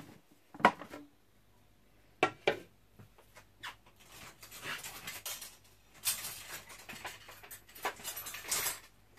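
Plastic clicks and knocks as a food processor's feed-tube pusher and lid are lifted off the bowl, the loudest under a second in. Scattered rustling and scraping handling noises follow from about four seconds on.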